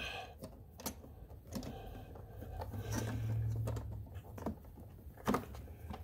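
Faint clicks and rustling of hands pushing the rubber fuel line back onto the carburetor fitting of a Honda EU2000i generator, with a sharper click about five seconds in.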